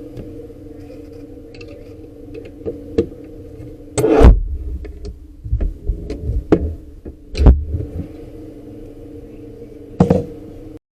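Scattered knocks and thumps from handling a cabinet door and its lock hardware, over a steady background hum; the loudest knocks come about four and seven and a half seconds in.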